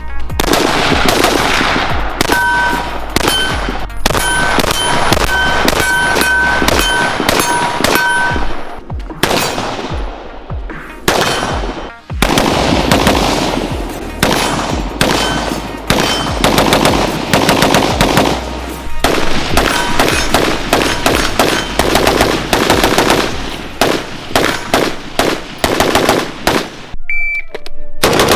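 Firearm gunfire: long strings of shots in quick succession, with a short break in the middle and faster, evenly spaced shots near the end.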